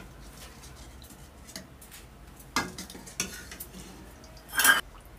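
Steel ladle stirring fish curry in a metal pot. It clinks and scrapes against the pot a few times, and the loudest, ringing clank comes near the end.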